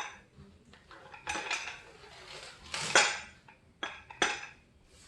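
Metal parts of a pull-up bar clinking and clanking together as they are handled, a run of sharp knocks with the loudest clank about three seconds in.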